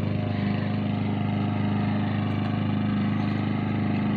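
Small petrol engine of a push lawn mower running at a steady speed, a constant droning hum.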